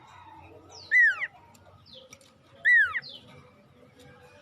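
Male sirtu bird calling: two loud, down-slurred whistled calls about a second and a half apart, each dropping steeply in pitch. Fainter high notes sound between them, the kind of call used as a lure to draw a female sirtu.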